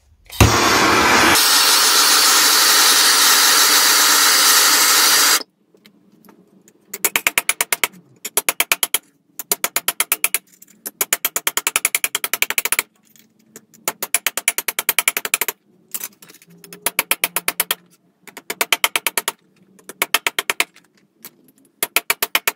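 A gas blowtorch flame hisses steadily for about five seconds. Then a metal body hammer strikes 1 mm sheet steel held over a gap in a bench vise, in quick runs of sharp blows about a second long with short pauses. The blows knock small V-shaped tucks into the heated edge so that it puckers and shrinks into a curve.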